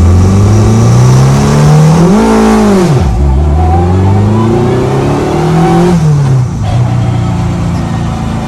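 The engine of a Honda-swapped Toyota MR2 (untuned) accelerating hard from a clutch launch, heard from inside the cabin. The revs climb, fall sharply at about three seconds at a gear change, climb again, and fall once more at about six seconds, then run steadier.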